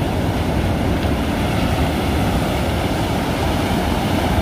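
Ocean surf breaking along the shore as a steady rush, with wind rumbling on the microphone.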